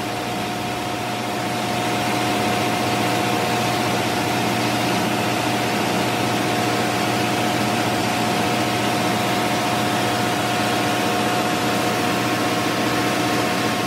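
Steady drone of ship's engine-room machinery running, with a few held hum tones over a noisy wash; it grows slightly louder about two seconds in.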